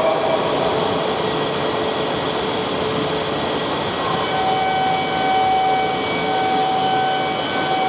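A Shinkansen train moving along the platform, giving a steady rushing noise. About four seconds in, a few steady high tones join it and hold.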